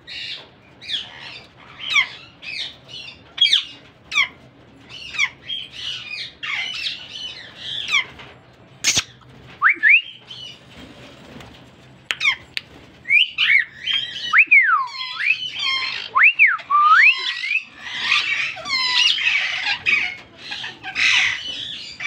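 Aviary parakeets, plum-headed parakeets among them, calling: a steady run of short, sharp squawks and chirps. In the middle come several longer swooping whistles, and near the end a dense stretch of chatter. A single sharp click comes about nine seconds in.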